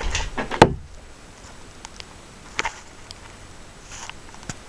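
Handling knocks and clicks inside a plastic kayak hull as the camera is moved about. The loudest is one sharp knock about half a second in, followed by a few lighter clicks.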